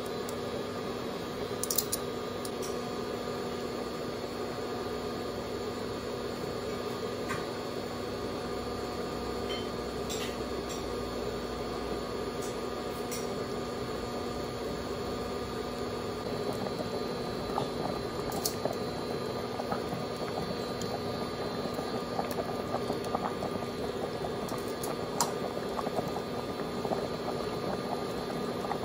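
A stainless stockpot of pork-rib soup boiling on the cooktop, the broth bubbling steadily and getting busier in the second half, over a steady electric hum. A few light clicks stand out, one about two seconds in.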